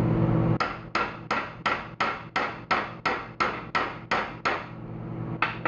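A hammer tapping about three times a second for some four seconds, then twice more after a short pause, knocking at a stuck part to drive it out.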